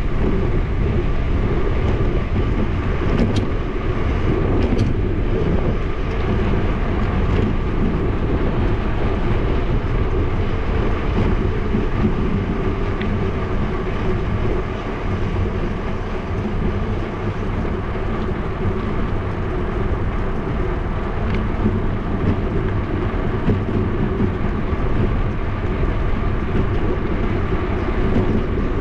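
Steady rush of wind on the action camera's microphone, with tyre and road rumble, from a bike rolling downhill on a paved mountain road.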